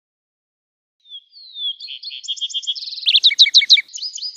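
Lark sparrow singing one song, starting about a second in: a falling opening note, then a fast jumble of trills, buzzes and clear whistled notes, loudest in the middle.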